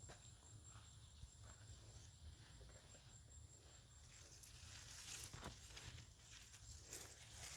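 Near silence outdoors: a faint steady high whine under a few soft, brief rustles in the second half.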